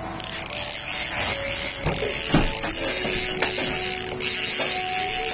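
Maruri LED spinning reel's drag buzzing as line is pulled off the spool against it, the sound of a fish taking line. A steady high hiss that breaks briefly about four seconds in.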